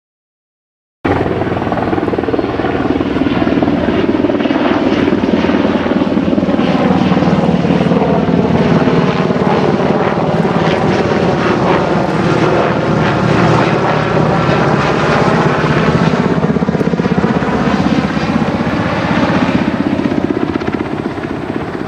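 Sikorsky SH-60F Seahawk helicopter flying low past overhead. The sound cuts in about a second in: the rapid, even beat of its four-blade main rotor over the running of its engines, its pitch bending down as it passes over, then easing off slightly as it moves away.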